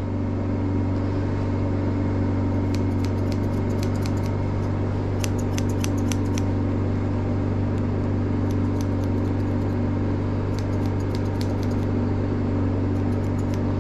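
Wolf-brand thinning shears snipping dog hair in short runs of quick, sharp snips, over a steady machine hum.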